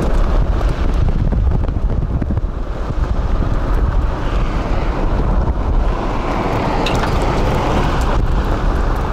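Road and wind noise from a small Daewoo Matiz driving on a rough, potholed highway: a steady low rumble with wind noise on the microphone.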